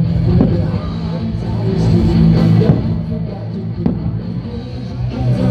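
Loud rock music with electric guitar and drums, the soundtrack to a fireworks show.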